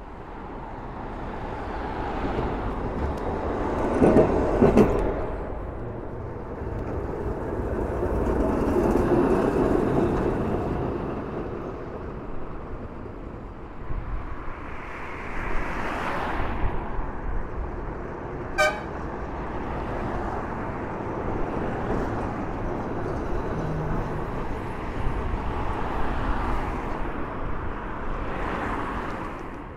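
Heritage tram running with wind rumbling on the microphone, the sound swelling and falling several times. A horn toots twice about four seconds in, and a single sharp knock comes a little past halfway.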